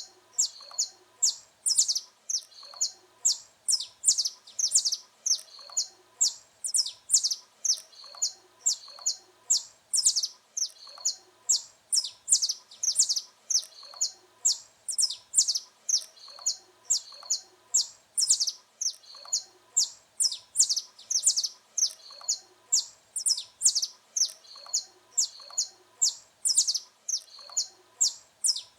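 Saffron finch (canário-da-terra) singing continuously: a rapid run of high chirps and short trills, phrases repeating over and over without a break.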